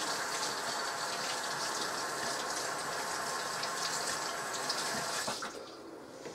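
Kitchen tap running as a hand is rinsed under it, shut off about five and a half seconds in.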